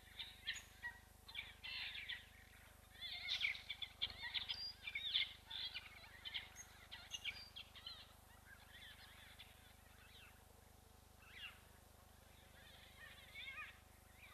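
Small birds chirping and twittering in quick, short rising-and-falling calls, densest through the first half and thinning out to scattered calls later.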